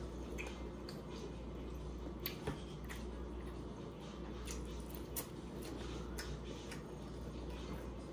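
Eating crab legs and lobster tails: scattered small clicks and cracks of shell being handled and broken, over a steady low hum.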